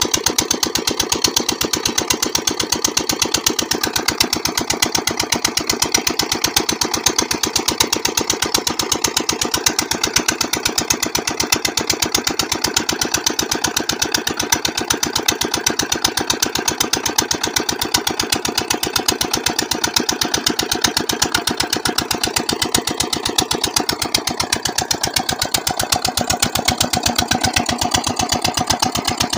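Petter-type single-cylinder diesel engine running steadily, a fast even chug of firing strokes, as it belt-drives a water pump.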